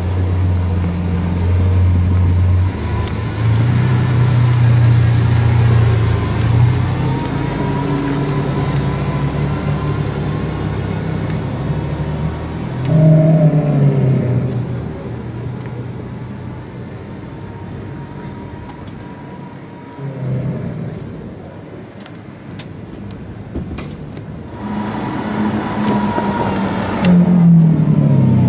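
Lamborghini Aventador LP700-4's V12 engine through a loud sports exhaust, pulling away at low speed. It gives one sharp rev about halfway through, then grows loud again and passes close near the end, its pitch falling as it goes by.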